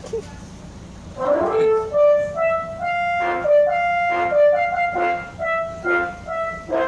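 Telolet horn of a Bus Damai tour bus, a multi-trumpet air horn playing a tune. It starts about a second in with a short rising swoop, then runs through quick held notes. A low steady rumble runs underneath.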